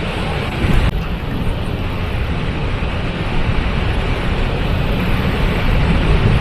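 Waterfall running: a steady, dense rush of falling water, heaviest in the low end.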